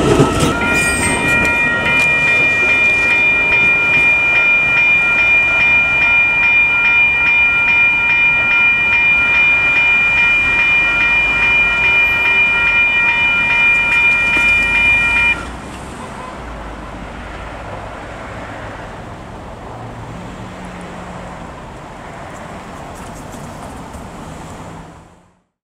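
Railway level crossing alarm bells ringing steadily while an electric multiple-unit commuter train pulls away, cutting off suddenly about fifteen seconds in. After that the train's quieter running noise carries on and fades out.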